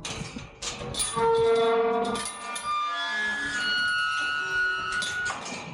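Background music: held notes that change pitch in steps and overlap, with a few sharp clicks.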